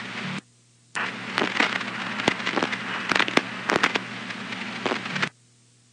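Radio scanner channel keyed open with no voice: hiss and crackling static over a steady low hum. It drops out briefly near the start, then cuts off sharply near the end as the squelch closes.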